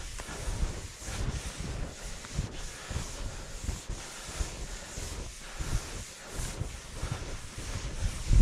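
Wind buffeting the microphone: an uneven low rumble that rises and falls in gusts, with a light rustling hiss over it and a stronger gust near the end.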